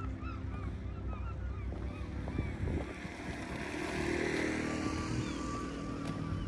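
A vehicle passing on the road, its noise swelling for a few seconds and then fading, over steady low background sound.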